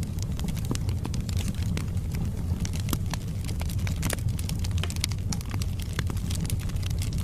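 Wood fire burning in a fireplace: a steady low rumble of the flames with frequent irregular sharp crackles and pops from the burning logs.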